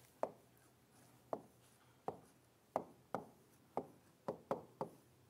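A stylus tapping and writing on a large touchscreen display: a series of short, sharp taps as each pen stroke lands, coming closer together toward the end.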